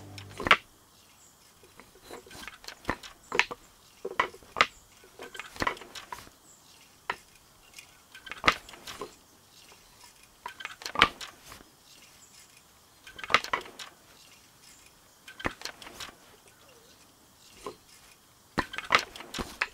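Wooden beater and bamboo rods of a hand loom clacking as the weft is beaten in: short clusters of sharp knocks, one every two to three seconds. Music cuts off about half a second in.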